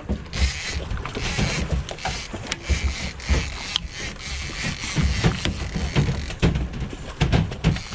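Fishing reel being cranked, giving mechanical clicking and ratcheting, with irregular knocks of gear and a steady low rumble of wind on the microphone.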